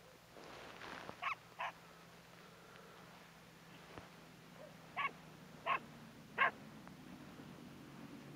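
Five short animal calls, each a brief sharp yelp: two close together about a second in, then three more, a little under a second apart, past the middle. A low steady hum comes up near the end.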